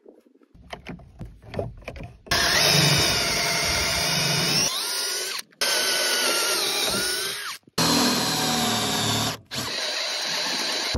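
A few light knocks, then an electric drill whirring as a twist bit bores through a pine board. It stops and starts several times, and the motor pitch rises briefly now and then.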